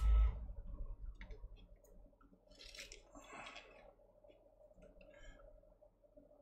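Soldering iron and desoldering braid being worked over a fluxed iPhone logic board to wick solder off the pads. A brief louder hiss comes at the start, then faint scattered clicks and a few short soft sizzles.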